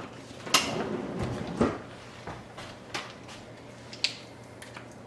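Knocks and light clicks of a plastic kitchen gadget and a bowl being handled on a countertop, with a louder knock about a second and a half in and lighter, scattered clicks after.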